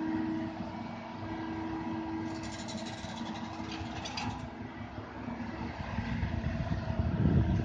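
Komatsu PC200 hydraulic excavator's diesel engine running steadily as it digs and lifts a bucket of mud, with a brief patch of fast clicking and rattling about two to four seconds in. The engine's low rumble grows louder near the end as the loaded arm swings up.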